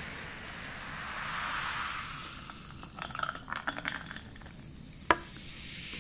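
Canada Dry ginger ale fizzing over ice in a glass mason jar as more is poured in from the can, with the ice crackling and clinking. One sharp glass clink, the loudest sound, comes about five seconds in.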